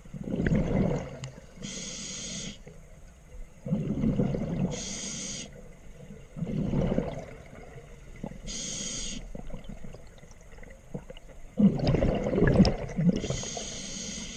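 Scuba diver breathing underwater through a regulator: four breaths, each a rumble of exhaled bubbles followed by a short high hiss of air through the regulator as the next breath is drawn, with a longer pause before the last breath.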